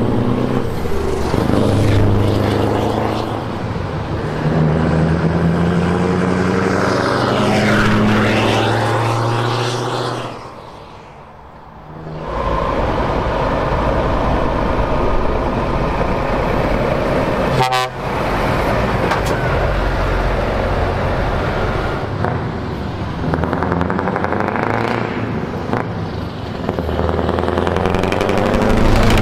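Heavy lorries driving past one after another, their diesel engines pulling in deep tones that rise in pitch as they accelerate, with a truck horn sounding. The sound drops away briefly about eleven seconds in, then heavy engine and tyre noise carries on.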